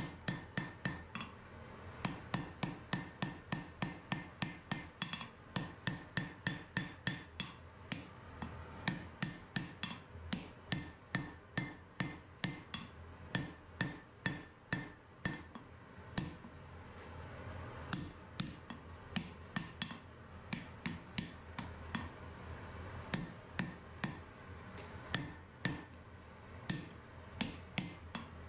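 Hand hammer striking a red-hot steel spearhead blank on an anvil during forging, a steady run of blows about three a second with a few brief pauses.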